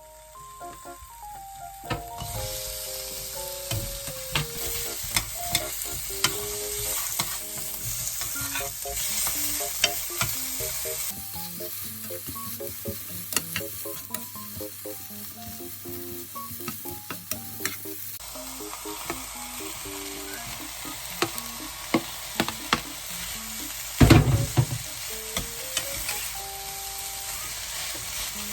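Food sizzling in a frying pan while being stirred, with many small clicks of the utensil against the pan and one louder knock near the end. Light background music plays underneath.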